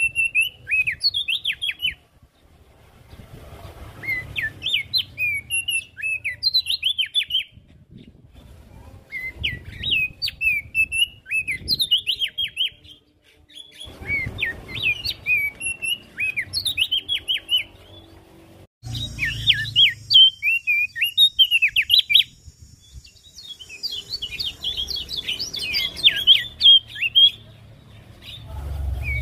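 Javan grey-throated white-eye (opior jambul) singing in rapid twittering phrases of quick rising and falling chirps. Each phrase lasts a few seconds, with short pauses between them, and the recording jumps abruptly about two-thirds of the way through.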